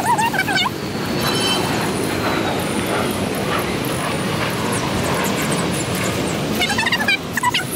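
Steady outdoor background noise of distant traffic, with bursts of rapid high chirping calls from birds at the start and again about seven seconds in.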